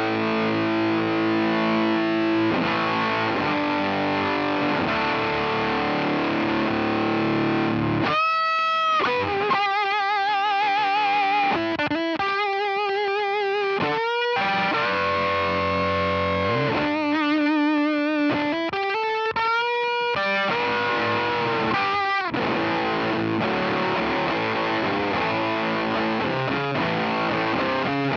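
Electric guitar played through the SVI Sound Fuzz Genetic germanium fuzz pedal into an amp emulation of a Marshall Bluesbreaker. Fuzzed chords for about the first eight seconds, then sustained single lead notes with wide vibrato and bends, then chords again near the end.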